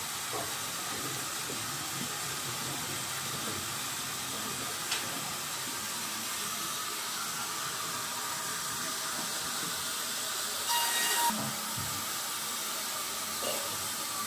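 Steady hiss of a water spray washing the log. About eleven seconds in there is a short, higher, whistling squeal.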